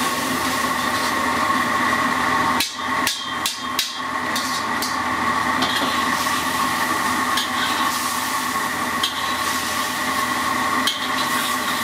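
Stir-frying mantis shrimp in a steel wok: a metal spatula clanks and scrapes against the wok several times over the steady rushing noise of the wok burner.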